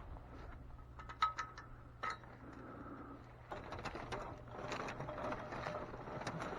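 Footsteps of a person walking outdoors. It is quiet at first with a few sharp clicks, then the steps come denser and louder from about three and a half seconds in.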